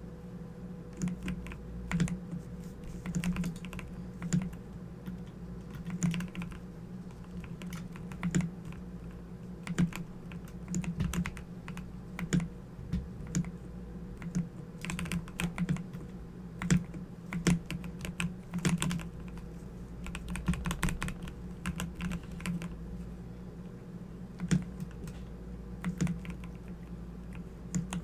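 Typing on a Corsair computer keyboard: irregular key clicks, now and then in quick runs, over a steady low hum.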